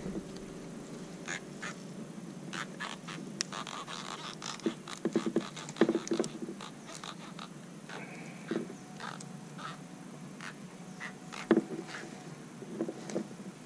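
Striped raphael catfish croaking in short grunting bursts as it is held out of the water, a sound these fish make by rubbing their pectoral fin spines in their sockets. The grunts come in two clusters, one about a third of the way in and one near the end, among sharp clicks of metal pliers working at the hook.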